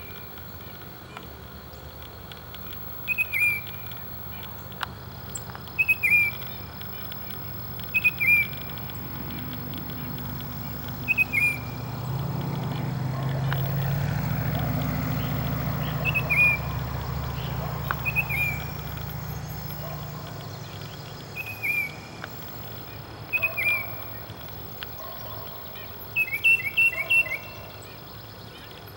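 Tufted titmouse calling: short, loud, down-slurred whistled notes, mostly in pairs, repeated every two to three seconds, with a quick run of several notes near the end. A low rumble swells and fades in the middle.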